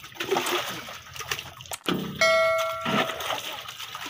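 A short electronic bell-like ding about two seconds in, lasting about half a second, over a noisy background.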